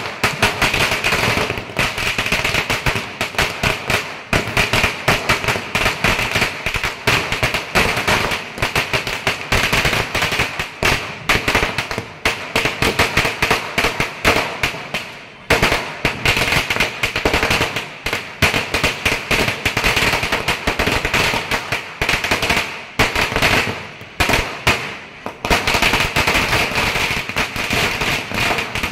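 Firecrackers going off in a rapid, unbroken run of sharp bangs, with a brief lull about halfway through and another a few seconds before the end.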